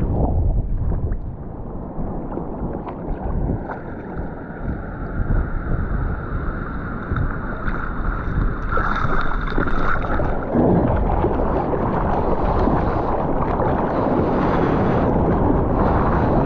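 Wind buffeting a GoPro's microphone over rushing, splashing seawater while surfing, with a faint high whistle through the middle.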